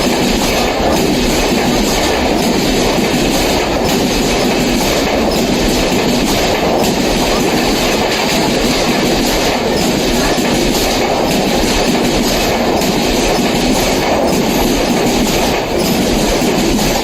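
A passenger train running at speed through a station, a steady loud rumble of wheels on rail with repeated clacks as the wheels pass over rail joints.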